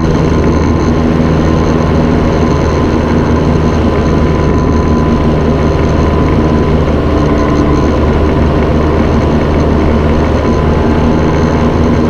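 Paramotor trike engine and propeller running steadily in flight, a loud continuous drone.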